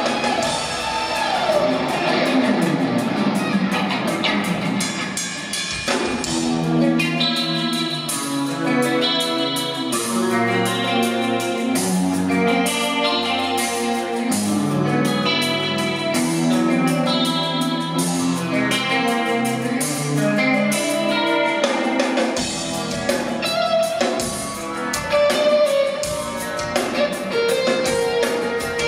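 Live rock instrumental led by an electric guitar. The first few seconds hold sliding, bending notes; from about six seconds in a steady run of picked melody notes plays over low notes underneath, which drop away a few seconds before the end, leaving longer held notes.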